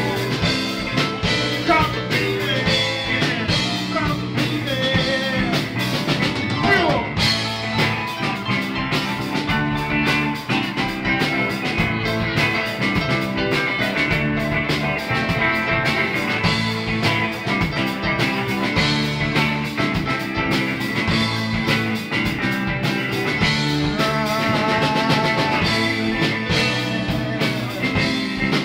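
Live rock band playing: electric guitars, bass guitar and drum kit, with a singer's voice over the top.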